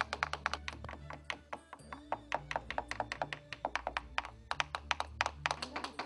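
Rapid, irregular tapping, several sharp taps a second, over soft background music with a low bass line.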